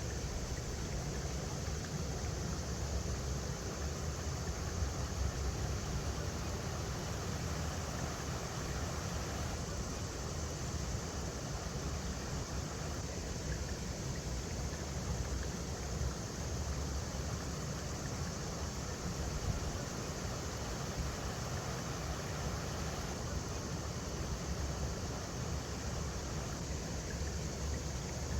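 A river running over rocks: a steady, even rush of water with a strong low rumble.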